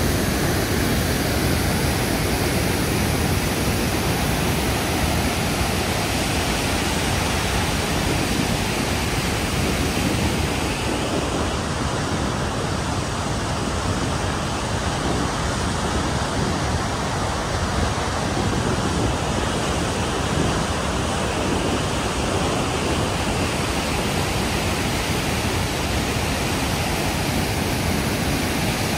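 The Möll river rushing through white-water rapids between rock slabs, a steady unbroken noise of churning water.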